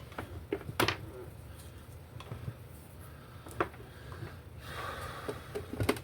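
Scattered sharp clicks and taps of small parts and tools being handled while working on a hanging shop light, with a short hiss about five seconds in.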